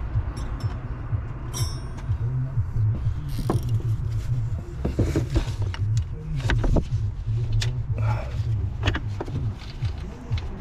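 Scattered metallic clicks and knocks of hand tools working in a van's engine bay, over a steady low rumble.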